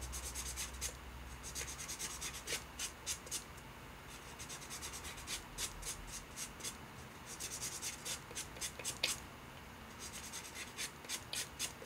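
Fine sanding sponge rubbed in quick, short scratchy strokes along the edge of a dried, unfired silver metal clay piece (Art Clay Silver), in runs with brief pauses. This is the dry-sanding stage that smooths the piece before firing.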